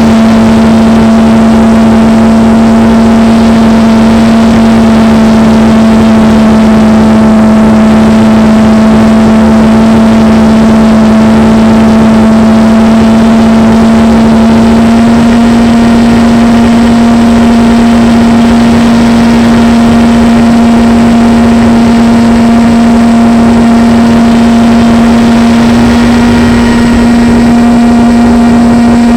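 RC plane's motor and propeller running at steady cruise, heard from on board, a loud even drone whose pitch steps up slightly about halfway through.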